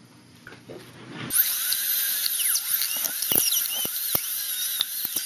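High-speed dental handpiece (air-turbine drill) starting about a second in with a loud, high-pitched whine whose pitch wavers up and down as the bur works on the tooth root, with several sharp clicks scattered through it.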